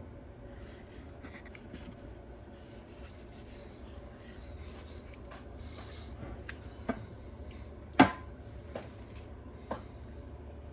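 Small tools and parts handled on a repair bench: soft rubbing with a few small sharp clicks, the loudest about eight seconds in, over a steady low hum.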